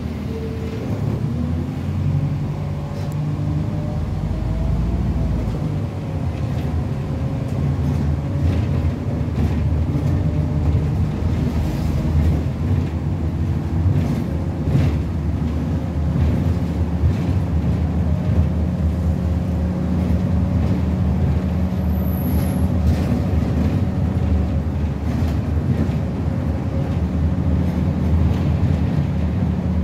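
Optare Solo bus heard from inside its saloon, pulling away and driving on. The diesel engine runs steadily underneath a whine that rises for a few seconds and drops as it changes gear, with scattered rattles and knocks from the cabin fittings.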